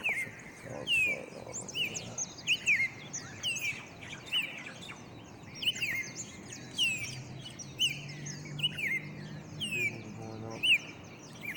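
Songbirds chirping, a chorus of many short, sharp, downward-sliding chirps repeating over and over.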